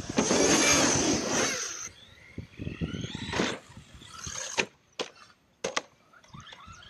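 Electric RC car running at a ramp, its motor whining amid a loud rush of noise for the first two seconds, then a whine rising in pitch as it speeds up. About four and a half seconds in come four sharp clacks as the car lands and tumbles on the asphalt after the jump.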